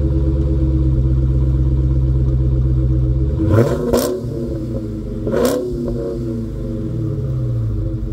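A 2023 Dodge Charger Hellcat's supercharged 6.2-litre HEMI V8 idles through its exhaust, then is given two short throttle blips a little under halfway through before settling back to idle.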